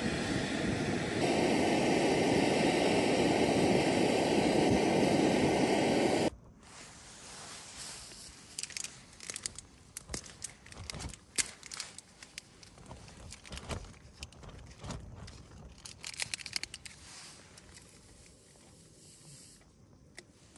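Steady, loud rushing noise for about six seconds, then an abrupt cut to much quieter crinkling and rustling, broken by irregular sharp crackles.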